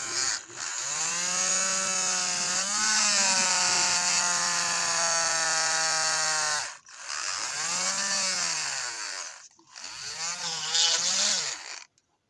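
Small 12-volt DC motor of a homemade mini drill running: it spins up with a rising whine, holds, and winds down, three times over. The first run is the longest, about six seconds, and the next two are shorter.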